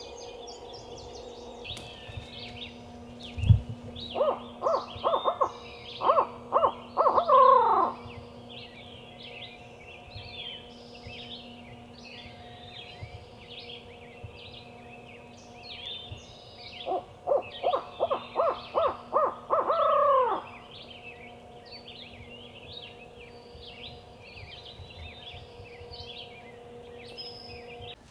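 Two loud series of barred-owl hoots, each a quick run of about eight hoots ending in a falling note, about four seconds in and again about seventeen seconds in. A dawn chorus of songbirds chirps throughout, and there is a low thump just before the first series.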